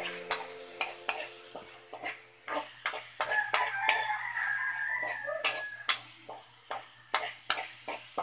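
Metal ladle clinking and scraping against a wok as sliced garlic, onion and tomato are stirred in hot oil, with a light sizzle underneath. The clinks come unevenly, several a second.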